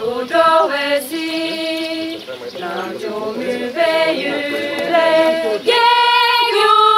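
A group of women singing a song together without instruments, in long held notes and phrases with short pauses between them.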